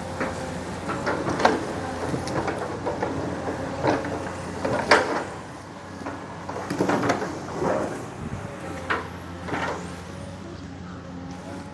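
Excavator's diesel engine running steadily under load, with repeated sharp clunks and creaks from the arm and bucket as it works the soil of a fresh embankment; the loudest knocks come about a second and a half in and about five seconds in.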